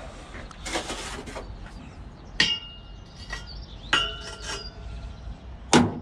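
Scrap metal being handled: a brief rustle, then two sharp metallic clinks that ring briefly, about a second and a half apart, and a louder knock near the end.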